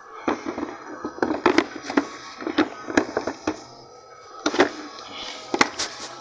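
Irregular sharp plastic clicks and knocks as the Nissan Altima's plastic air box housing is pushed and worked into place by hand, with about a dozen knocks in quick clusters.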